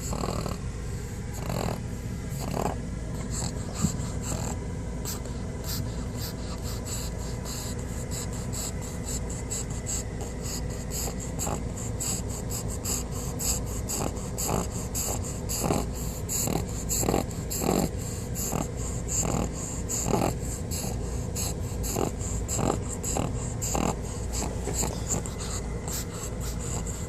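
Sleeping pug snoring, one short rasping breath after another at an uneven pace.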